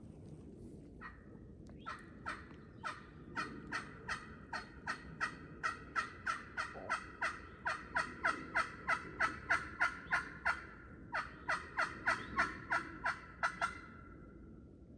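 A long series of loud turkey yelps, about three a second and speeding up, with a short break about ten and a half seconds in.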